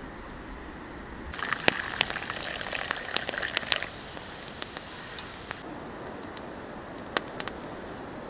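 Hot coffee poured from a metal camp pot into a wooden cup, splashing and gurgling for about two and a half seconds. A few isolated sharp clicks follow.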